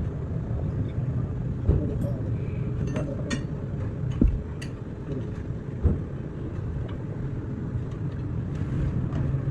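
Steady low rumble, like a vehicle, with a few short sharp knocks from work on metal parts scattered through it.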